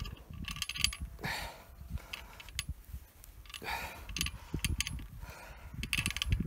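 Irregular small metallic clinks and scrapes as hands work a worm-drive hose clamp and rubber gas hose onto the brass fitting of a propane gas regulator.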